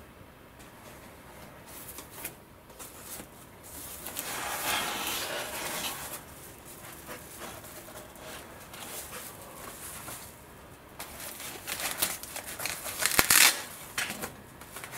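Rustling, crinkling and scraping of foam packing and foil-faced wing bags as RC glider wing panels are pulled out of a wooden crate. The handling is louder about four seconds in and again near the end, with a few sharp clicks.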